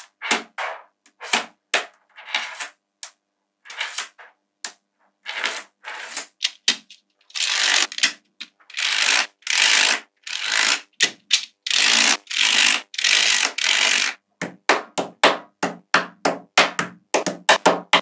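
Small magnetic balls clicking and clattering as strips of them are snapped into place by hand: a string of sharp separate clicks, a run of longer rattling clatters of about half a second each in the middle, then quicker clicks, several a second, near the end.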